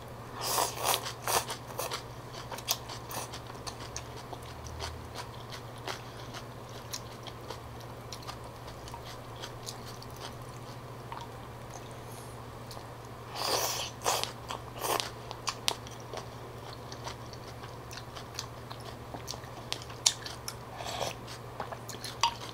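Close-up sounds of eating phở: slurping rice noodles and chewing them with raw bean sprouts, with small wet mouth clicks. A cluster of slurps comes just after the start and another a little past the middle.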